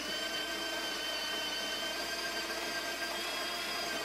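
De'Longhi La Specialista Arte's built-in conical burr grinder running, grinding coffee beans into the portafilter: a steady motor whine that holds an even pitch.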